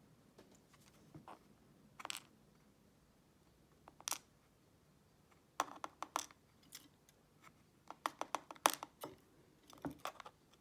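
Small metal padlock parts being handled: scattered light clicks and taps, with a quick run of clicks a little past halfway and another near the end.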